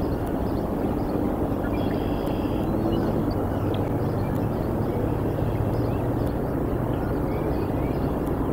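Steady low rumble of outdoor background noise, with a few faint, short bird chirps scattered through it.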